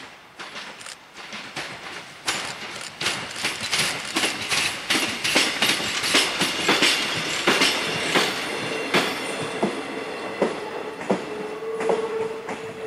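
ZSSK class 813 diesel railcar set passing close by, its wheels clicking in quick runs over the rail joints, loudest mid-way as the cars go past. A brief squeal comes near the end.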